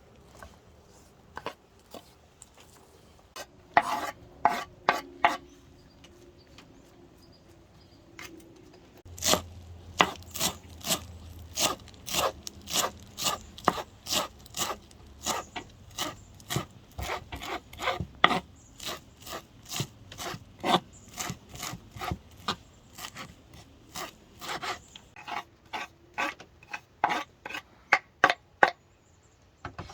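Knife chopping vegetables on a cutting board: a few scattered chops at first, then a steady run of about two chops a second from roughly a third of the way in.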